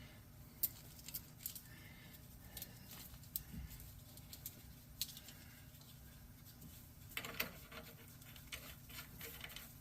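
Faint, irregular clicks and taps of hand work on the rear suspension: nuts being started by hand onto new leaf-spring U-bolts, with a few sharper metal clicks scattered among them.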